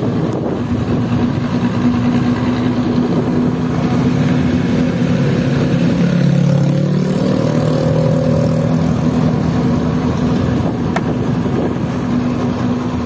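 Bus engine with a racing exhaust running steadily. About six seconds in it revs up, its pitch climbing for around two seconds before settling back.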